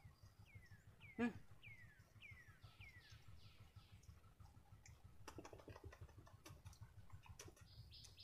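Near-silent forest background. A bird calls a series of about six falling whistled notes over the first three seconds. A sharp click comes about a second in, and a scatter of soft clicks follows in the second half.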